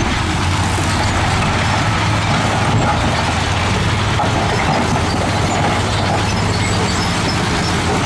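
Dump truck's diesel engine running steadily while its tipper bed is raised and a load of rocks and earth slides out, a constant low rumble under a rough, even noise.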